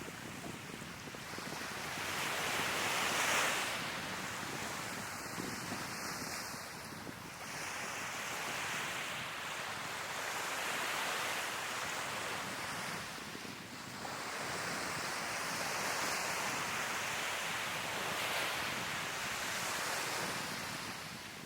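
Sea waves breaking and washing onto the shore, surging and easing every few seconds, with the loudest surge about three seconds in.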